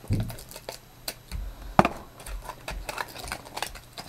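Packaging of a toy model being cut and handled: a run of irregular clicks and taps, with one louder click a little under two seconds in.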